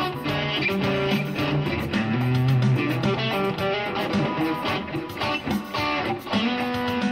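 Electric guitar playing a melody of single held notes that change pitch every second or so.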